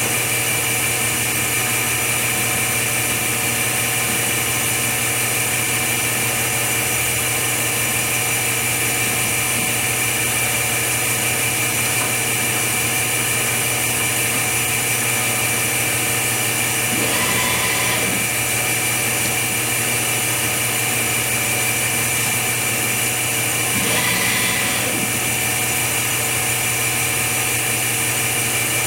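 Steady machine hum with a high, constant whine, broken twice by a brief louder whirr about 17 and 24 seconds in.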